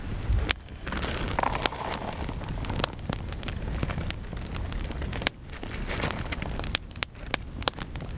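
Wood campfire crackling, with scattered sharp pops and snaps at irregular intervals, over a low wind rumble on the microphone.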